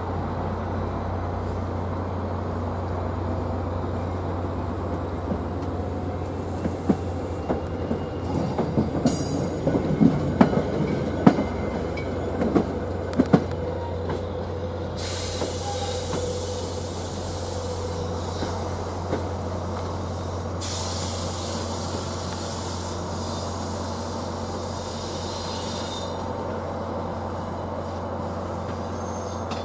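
Train at the station: a steady low drone, with a run of sharp clanks and knocks about a quarter of the way in, then a long stretch of high hissing or screeching noise through the middle.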